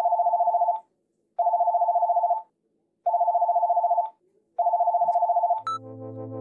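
Telephone handset ringing with an electronic ring, a rapid two-tone trill, four rings of about a second each with short silent gaps between them.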